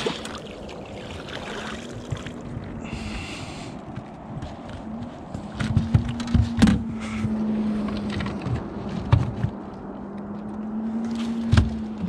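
Bow-mounted electric trolling motor humming steadily, cutting out and back in several times. From about halfway on, sharp knocks and thumps as the netted walleye and the landing net's metal frame hit the boat deck, loudest just before the seven-second mark.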